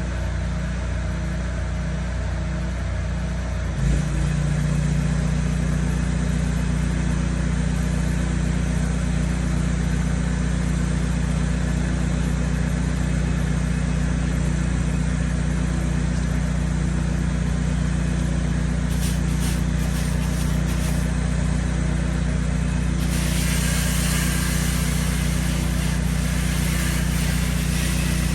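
Pressure washer engine running steadily. About four seconds in there is a brief knock and the engine note shifts and strengthens, as if it took up load. A steady hiss joins in near the end.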